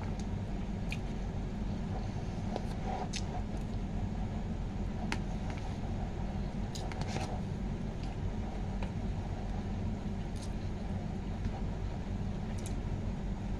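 Steady low background hum, with scattered soft clicks and ticks from a utensil and chewing while a person eats noodles.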